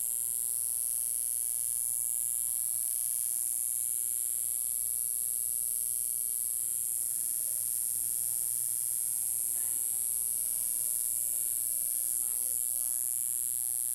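Steady electrical hum with a high-pitched buzz over it, played through the speakers from an AT-LP120 turntable wired into an external phono preamp: the hum of a turntable whose ground wire is not yet connected.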